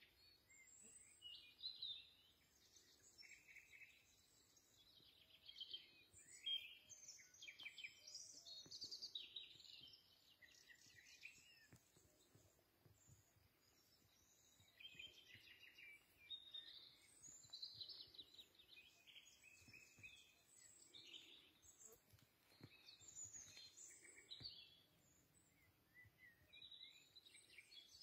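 Several songbirds singing, with short, quick chirping phrases that overlap one another, thinning out for a few seconds around the middle before picking up again.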